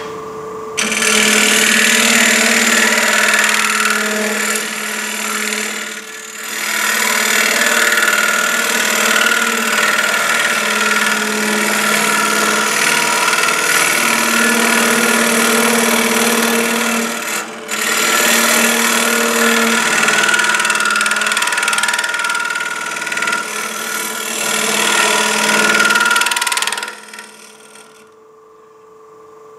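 Wood lathe running while a small high-speed-steel turning tool cuts into the spinning wood, thinning a canteen's wall: a steady, loud cutting hiss over the lathe's hum, with two brief breaks. The cutting stops near the end, leaving the lathe humming.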